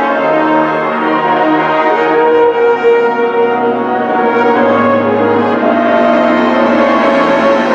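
Symphonic wind band playing sustained chords, brass to the fore, the harmony shifting every second or two.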